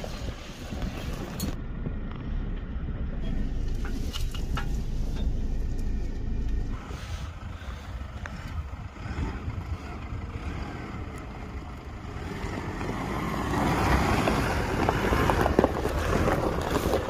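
4x4 pickup trucks driving slowly over a rough desert track: a low engine rumble under wind buffeting the microphone, with the noise swelling about two-thirds of the way through.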